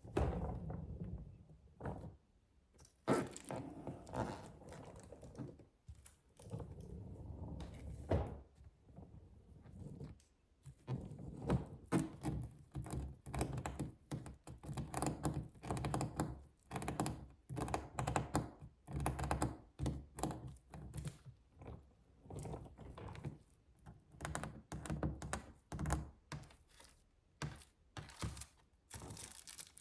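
Suitcase being handled for ASMR: a longer rustling or sliding sound at first, then from about 11 seconds in a fast run of knocks and taps.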